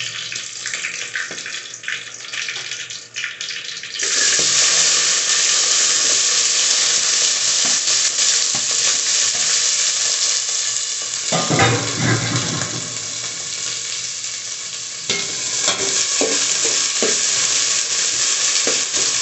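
Green chillies crackling in hot oil in an aluminium pot. About four seconds in, chopped onions go in and the oil breaks into a loud, steady sizzle, stirred with a metal spoon that scrapes the pot.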